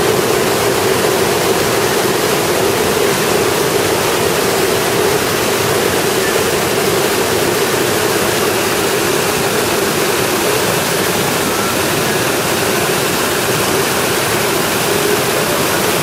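Aira Beck pouring over a waterfall and rushing through rocky rapids: a loud, steady rush of white water.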